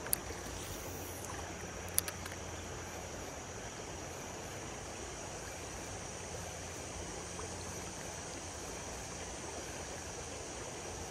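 Steady rush of a shallow creek's current flowing past. A few sharp clicks come in the first two seconds.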